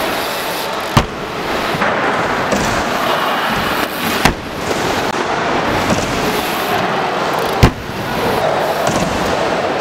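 BMX bike landing hard three times on ramps, three sharp bangs about a second in, just past four seconds and just past seven and a half seconds, over a steady rushing noise.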